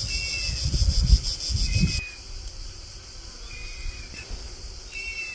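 Insect chorus, a steady high buzz, with wind rumbling on the microphone; both cut off abruptly about two seconds in. A few short, high, slightly falling chirps come every second or two throughout.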